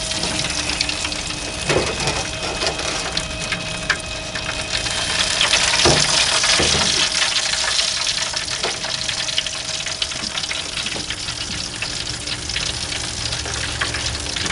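Steady sizzling hiss from an open propane gas grill as turkey breasts turn on the rotisserie over the lit burners, with a faint steady hum and a few light clanks.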